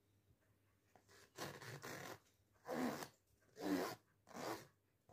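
Four short rasping scrapes, the first starting about a second and a half in, each lasting under a second.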